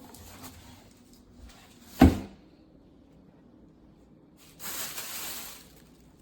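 Countertop microwave door being unlatched and opened: one sharp clack about two seconds in, then about a second of hissing rustle near the end.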